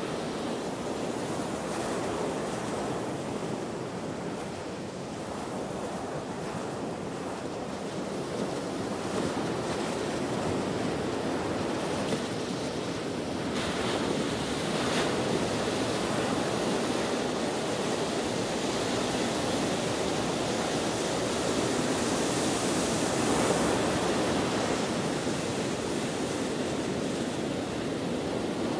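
Ocean waves breaking and washing on the shore in a steady, continuous rush that swells and eases, with wind blowing over it.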